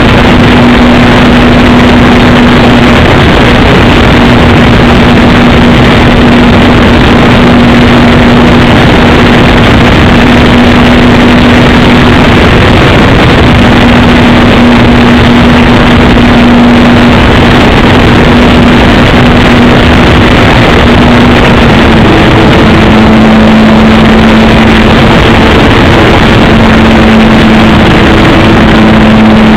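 Engine of a radio-controlled Piper J-3 Cub model aeroplane running in flight, a steady drone under a loud, overdriven hiss; its note shifts about 22 seconds in.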